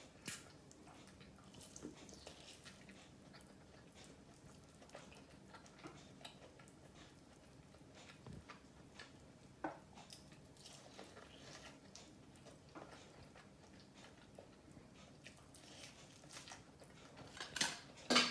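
A person chewing and biting KFC fried chicken close to the microphone: faint, scattered wet clicks and small crunches, with a sharper click about ten seconds in and a louder noise near the end.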